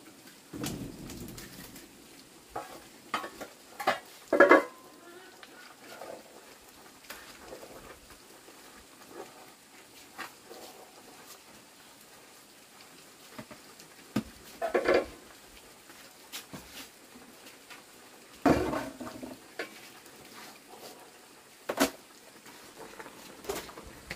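Kitchen work: scattered clinks, knocks and scrapes of utensils against pots and dishes over a faint steady hiss. The loudest clatters come about four and a half seconds in and again past eighteen seconds.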